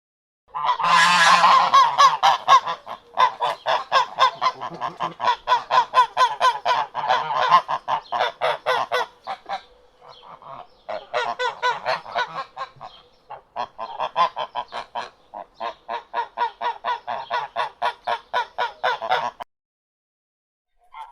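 A flock of waterfowl calling over and over in quick succession, several calls a second. The calling thins briefly about halfway through and stops a little before the end.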